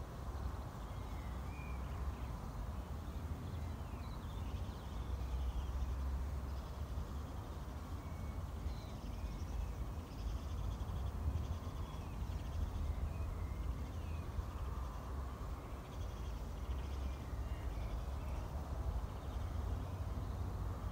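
Open-field ambience: a steady low rumble of wind that swells and eases, over a soft rushing hiss. Faint, short bird calls come and go throughout.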